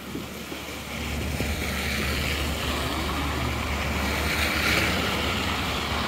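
Wind buffeting the phone's microphone in a snowstorm, a steady low rumble that sets in about a second in. Under it runs a broad outdoor rush that swells and fades around four to five seconds in.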